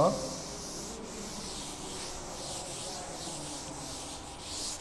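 A chalkboard duster rubbed over a blackboard, wiping off chalk writing: a steady rubbing hiss, with a louder stroke near the end.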